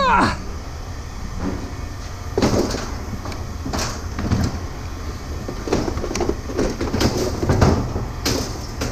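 Scrap metal being handled, clanking and rattling in a string of irregular knocks and bangs from about two and a half seconds in. A short squeal drops in pitch right at the start.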